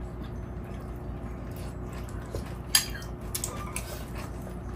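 A few light clinks of metal spoons against ceramic soup bowls, the clearest just past halfway, over a steady low hum.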